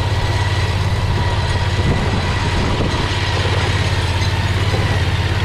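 Predator 670cc V-twin engine running steadily under load, driving the go-kart along a trail, with a faint steady high whine above the engine.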